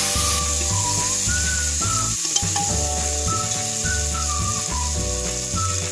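Chopped tomatoes, onion and garlic sizzling as they fry in hot refined oil in a pressure cooker pan. Background music with a high, whistle-like melody and a bass line plays throughout.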